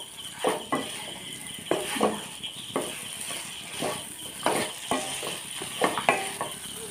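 Wooden spatula stirring and scraping fried chicken in thick masala around a nonstick pan, in irregular strokes every half second or so, over a steady sizzle from the pan on a raised flame.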